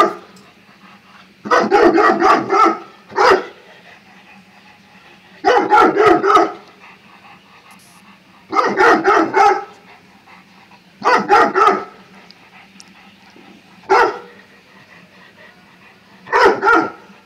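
Bullmastiff barking in repeated volleys of several quick barks, a pause of a second or two between volleys, with a few single barks among them.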